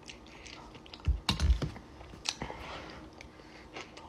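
Eating utensil clicking and scraping against a glass bowl, with a few dull knocks about a second in.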